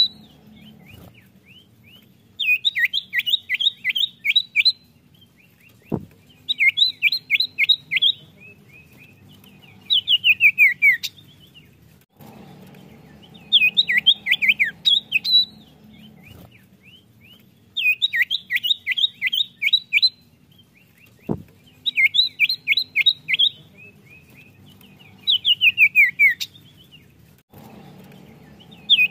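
Common iora (cipoh) singing: repeated phrases of quick, downward-slurred whistled notes, each phrase a second or two long, coming about every four seconds. Two brief clicks are heard, one about six seconds in and one near 21 seconds.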